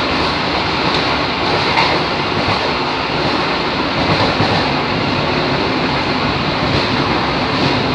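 KRD diesel railcar running along the line at speed, a steady rumble of wheels on rail and diesel engine, heard from the rear cab, with a few faint rail clicks.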